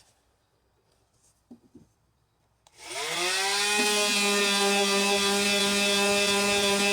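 Electric power sander switched on about three seconds in, its motor winding up in pitch within half a second and then running at a steady high whine. A few faint knocks come before it starts.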